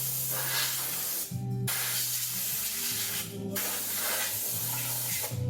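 Background music from a soft love song between sung lines: a steady low accompaniment under a loud hissing wash that breaks off for a moment about every two seconds.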